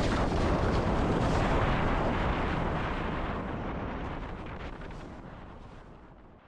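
Wind buffeting the microphone, a loud, rumbling rush that fades away over the last few seconds.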